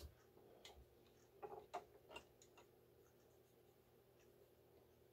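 Near silence with a handful of faint clicks and taps in the first couple of seconds, hands handling a Singer 431G sewing machine, over a faint steady hum.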